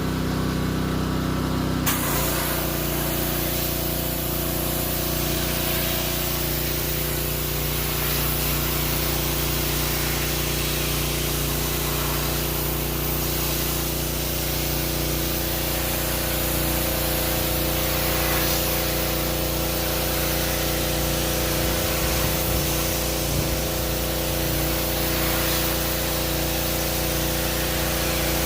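Pressure washer running steadily, its motor humming under the hiss of the high-pressure water jet, which starts spraying about two seconds in.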